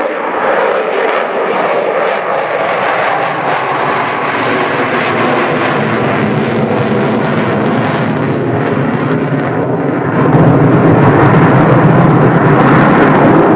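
Loud jet noise from the Avro Vulcan's four Olympus turbojet engines as it flies past, getting louder and deeper about ten seconds in.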